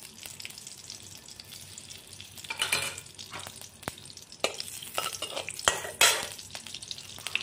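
Ghee melting and sizzling softly in a hot metal wok, with a few short, louder bursts of a metal spatula scraping and stirring in the pan from about a third of the way in.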